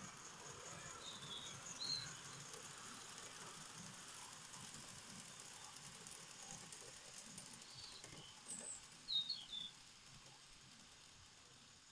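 Small birds chirping a few times, loudest about nine seconds in, over a faint steady hiss and light clatter from a Gauge 1 live-steam locomotive and coaches on garden track. The hiss and clatter fade toward the end.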